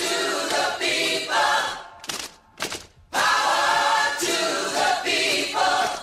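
A cappella group of voices singing a short radio-station jingle in harmony: two matching sung phrases, each ending with two short, clipped hits.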